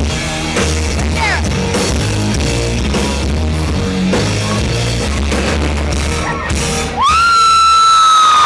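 Live rock band playing loudly, with drums, bass, guitar and singing. About seven seconds in the band stops and one long high-pitched voice is held over the start of crowd cheering.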